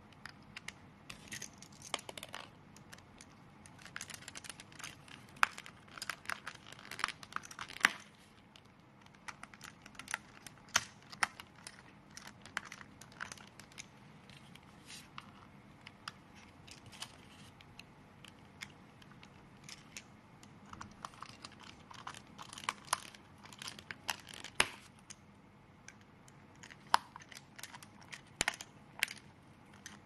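Small screwdriver fastening screws into the plastic shell of a lamp foot switch: irregular clicks, scrapes and rustling as the switch is handled and the screws are turned.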